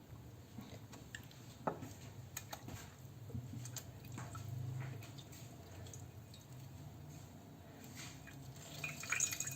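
Faint water drips and small splashes from a bread slice being dipped in salted water and squeezed out by hand, with a few light clicks. The drips grow busier near the end, over a faint low hum.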